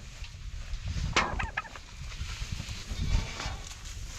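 A farmyard fowl gives a short, quick rattling call about a second in, over a steady low rumble. Fainter animal calls follow near the end, amid the goats.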